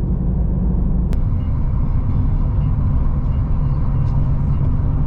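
Steady engine and road drone heard from inside a moving vehicle's cabin, with a single short click about a second in.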